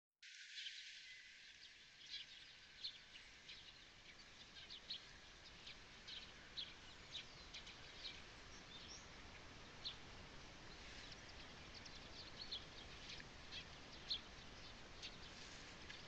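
Small birds chirping faintly in the open, short high notes scattered about once or twice a second, over a steady hiss of wind.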